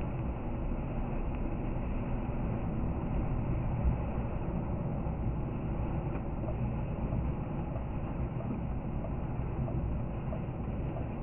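A car's tyres and engine at steady cruising speed, about 75 km/h, on a snow-covered expressway, heard from inside the cabin: a constant rumble of road noise, easing slightly near the end as the car slows.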